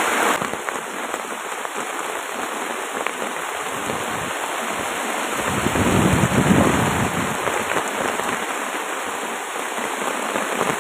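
Heavy rain falling steadily, a dense even hiss, swelling louder for a second or so about six seconds in.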